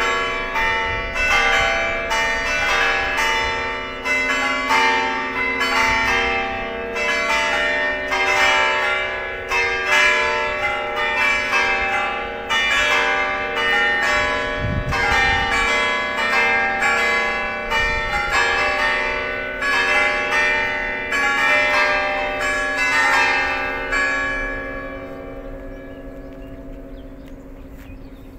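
Church bells of the Church of San Juan Bautista pealing to call the faithful to mass, many strikes in quick succession with the tones ringing on over each other. Near the end the striking stops and the ringing dies away.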